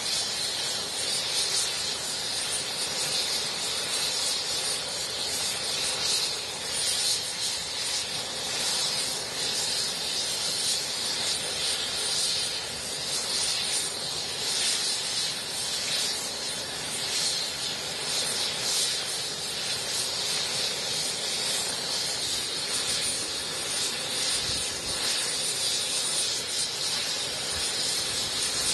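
Helicopter engine running steadily on the ground, a continuous hissing whine with no change in pitch.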